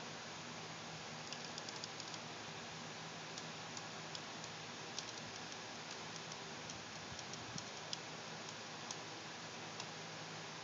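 Scattered faint ticks, a few close together about a second in and then sparser, over a steady hiss and a low hum.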